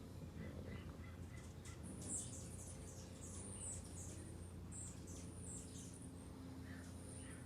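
Small birds chirping: a run of quick, high notes, each falling in pitch, thickest in the middle, over a faint low hum.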